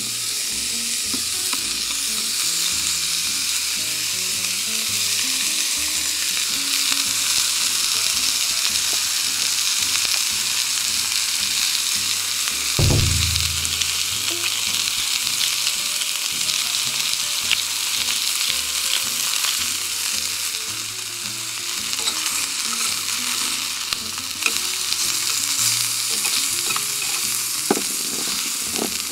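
Beef slices sizzling in a hot cast-iron skillet, a steady high hiss throughout. There is a brief low thud about thirteen seconds in, and a few light clicks near the end as tongs turn the meat.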